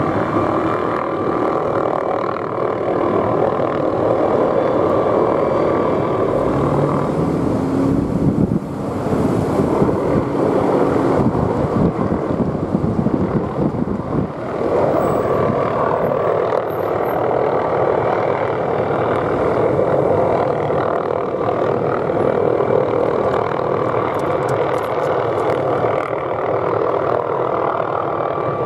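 McDonnell Douglas MD520N NOTAR helicopter flying while towing a pulling line: its turbine and rotor make a steady, continuous hum, rougher and noisier for a few seconds in the middle.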